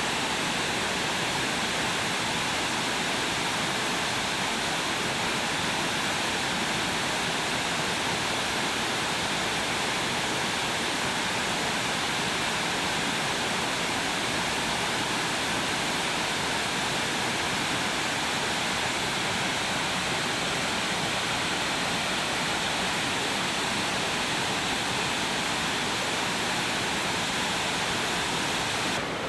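Heavy rain pouring steadily during a storm, a dense, even hiss with no let-up.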